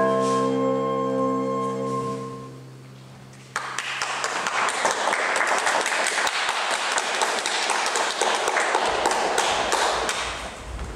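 Recorded dance music ends on a long held chord that fades away, then about three and a half seconds in applause starts suddenly and runs for several seconds before fading near the end.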